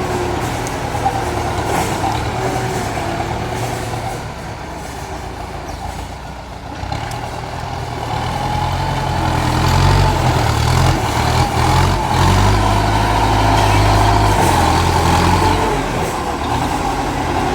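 Heavy diesel engine of a large vehicle running with a low, steady drone. It eases a little, then grows louder about halfway through and stays loud.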